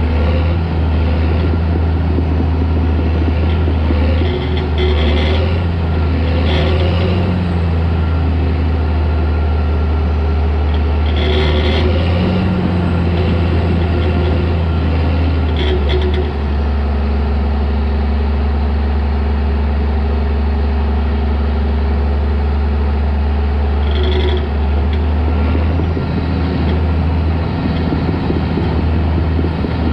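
Caterpillar D4 crawler dozer running steadily under work, its diesel engine giving a loud low drone, with a few brief higher-pitched squeals or clanks from the machine. The engine note shifts about halfway through.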